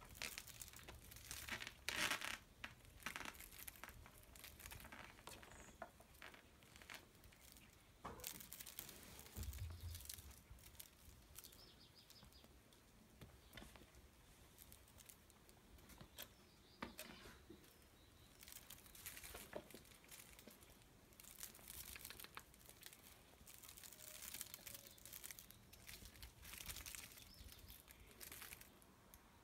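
Faint, irregular rustling and scratching: a feather wand toy swishing and a kitten's paws and claws scrabbling at a plush cat-tree perch, in short bursts throughout.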